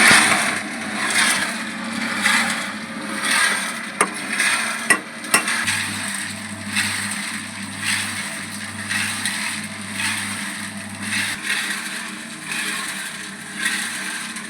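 Rhythmic scraping noise that swells about once a second over a steady low machine hum, with a few sharp knocks about four to five seconds in.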